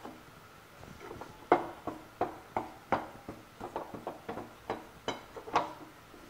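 A metal spatula scrapes and knocks against a metal kadhai as wheat flour is stirred and roasted in ghee. A quick run of a dozen or so strokes starts about a second and a half in; the first is the loudest.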